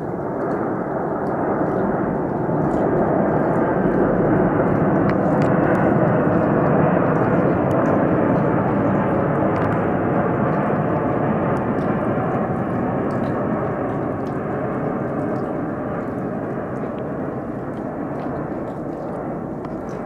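Twin-engine jet airliner passing low overhead on approach with its landing gear down: a broad, steady jet rumble that swells to its loudest about six seconds in, then slowly fades.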